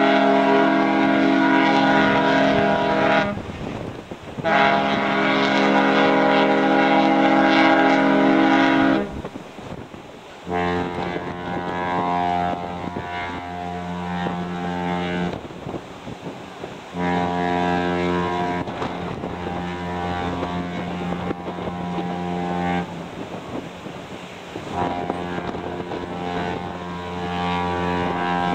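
Two cruise ships' whistles exchanging salutes. The Pacific Princess's whistle sounds two long blasts: the first is already sounding and stops about three seconds in, and the second ends about nine seconds in. Celebrity Zenith's deeper, quieter whistle then answers with three long blasts, the last still sounding at the end.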